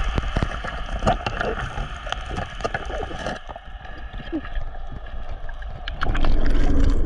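Underwater sound heard through an action camera's waterproof housing: a muffled steady hiss dotted with many sharp clicks and crackles. About six seconds in, a louder rush of water starts as the swimmer moves up.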